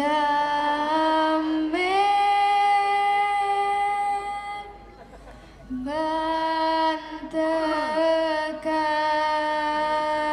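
A solo voice singing long, held notes into a microphone without accompaniment. The pitch steps up about two seconds in, the voice breaks off for about a second near the middle, then comes back with another long held note.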